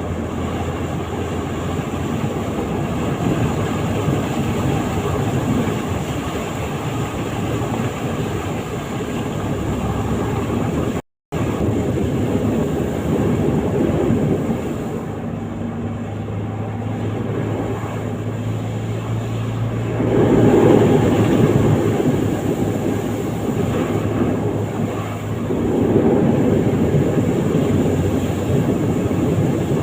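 A vehicle running with steady rumbling noise and a low engine tone. The sound drops out briefly about eleven seconds in, then carries on.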